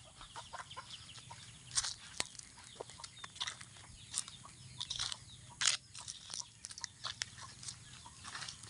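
Chickens clucking, mixed with irregular short crackles and rustles of dry leaves on the ground.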